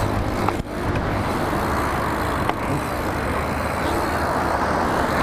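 BMX bike rolling fast over pavement: steady rush of wind on the microphone with tyre rumble underneath, and a short knock about half a second in.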